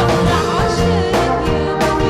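Live band music playing a worship song, with a steady bass line and sustained keyboard notes, and drum or cymbal hits about a second in and near the end.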